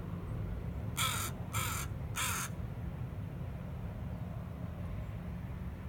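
Crow cawing three times in quick succession, about a second in.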